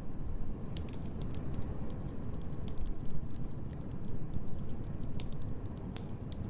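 Wood fire crackling in a fireplace, with scattered sharp pops and snaps over a low, steady rumble.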